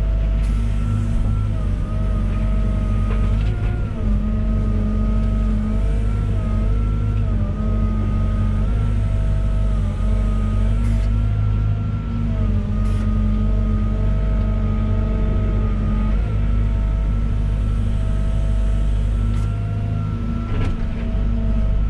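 Volvo EWR150E wheeled excavator's diesel engine running steadily at working revs. A constant low drone carries a high whine that wavers slightly in pitch, and a few faint knocks and clicks can be heard.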